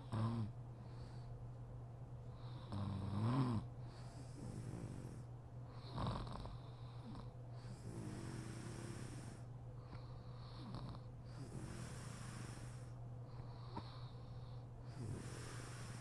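Woman snoring in deep sleep: slow, hissy breaths every couple of seconds, with short snorting snores near the start and about six seconds in, and a louder snore that rises in pitch about three seconds in.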